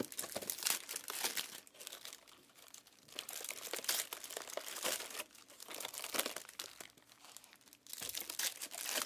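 Foil trading-card pack wrappers crinkling as they are handled, in irregular bursts of crackling.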